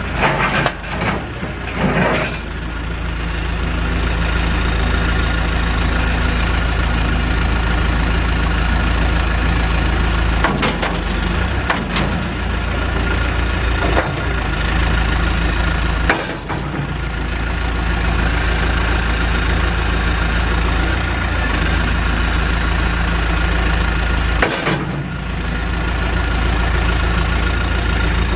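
2005 John Deere 410G backhoe loader's diesel engine running steadily, with a handful of short knocks and clunks over it. At a few of these the low engine rumble briefly dips.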